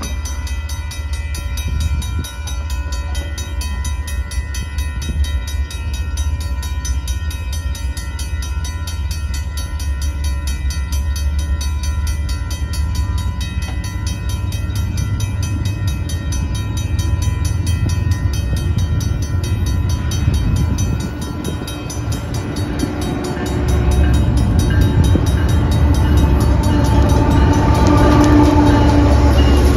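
Railroad grade-crossing warning bells ringing steadily over a low rumble. About 24 s in it grows louder as the Union Pacific GE C45AH lead locomotive of a freight train reaches the crossing, adding the rumble of its engine and wheels.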